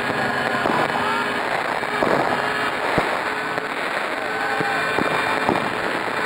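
Fireworks fountains carried by a radio-controlled helicopter hissing and crackling, with several sharp pops, the loudest about three seconds in. The helicopter's rotor runs steadily underneath.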